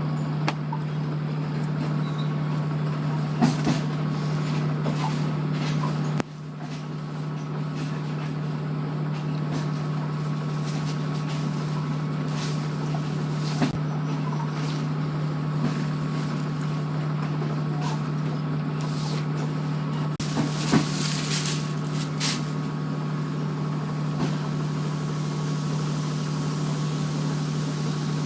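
Steady low engine hum of a train idling in the station, with scattered clicks and a short hiss about twenty seconds in.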